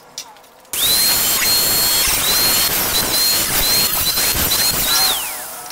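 Angle grinder with a thin cutting disc cutting through a 0.75 mm galvanized light-steel C-channel. The motor's high whine comes up about a second in, dips in pitch several times as the disc bites into the metal, and falls away as the grinder spins down near the end, over a harsh hiss of disc on steel.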